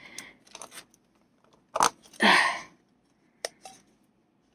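Hands handling small plastic diamond-painting tools: light clicks and rustles, with a sharp click and then a short, louder rush of noise about two seconds in, and another click a little later.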